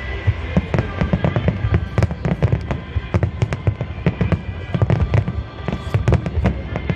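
Fireworks display: a dense volley of shells bursting in rapid, overlapping bangs and crackles, with music playing along.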